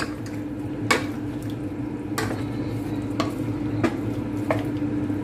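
Pork pieces frying and sizzling in a stainless steel pan while a spatula stirs them, scraping against the pan about once a second, over a steady low hum. The pork is browning in soy sauce for adobo.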